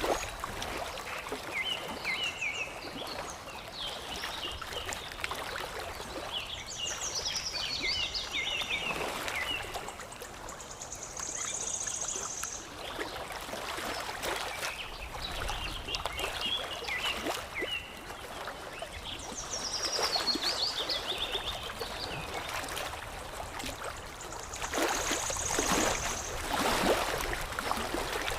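Water lapping and trickling steadily with small splashes, while songbirds chirp in quick high phrases that come and go every few seconds.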